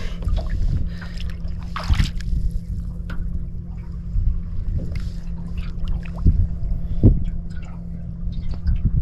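Small fishing boat on the water: a steady low rumble with water sloshing, broken by a few sharp knocks on the hull or deck.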